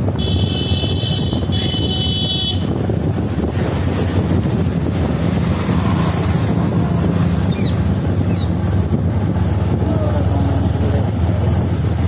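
Motorcycle running steadily on the move, with wind noise on the microphone. A horn honks twice near the start, each honk about a second long.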